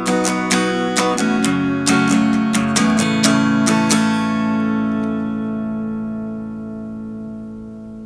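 Acoustic guitar strumming the final bars of a song, with quick strums until about four seconds in. Then a last chord is left ringing and slowly fades out.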